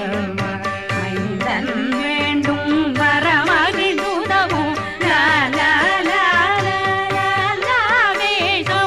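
Carnatic devotional music: a wavering, heavily ornamented melody over a low drone, with drum strokes in the first part.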